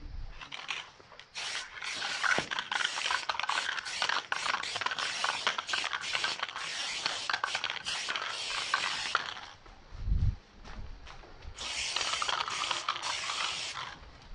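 Aerosol spray paint can hissing in a rapid run of short and longer bursts for about nine seconds, then a brief pause with a low bump, then another run of bursts.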